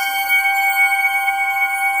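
Ambient music: a bell-like tone rings on, held steady like a soft flute drone, with no new strike.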